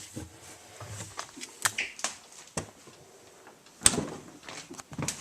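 Several scattered sharp clicks and knocks from things being handled, the loudest about four seconds in.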